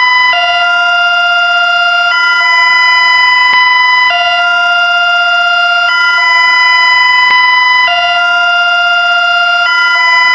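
Electronically generated emergency alert tone: two steady multi-tone chords alternating about every two seconds, loud and unbroken.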